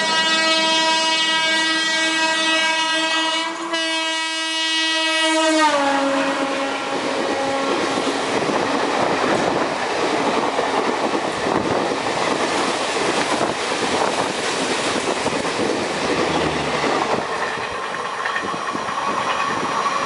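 WAP-4 electric locomotive's horn sounding one long blast, its pitch dropping about five to six seconds in as the locomotive passes at speed on the next track. After it, the rush and clickety-clack of the overtaking express's coaches speeding close past.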